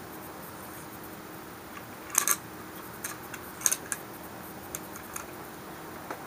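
Small metal clicks and clinks of steel parts inside a Remington Model 11 shotgun receiver as the locking block latch and its spring are fitted by hand: a quick cluster of clicks about two seconds in, a double click near the middle, then a few lighter ticks.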